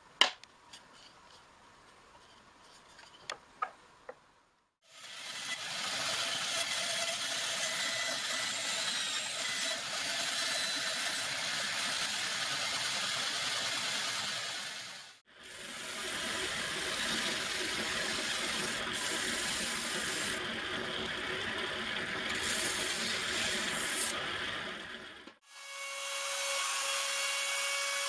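A few seconds of quiet with light knocks, then a power tool cutting wood in three runs that start and stop abruptly. In the last run a handheld plunge router is routing a wooden strip, with a steady whine over the cutting noise.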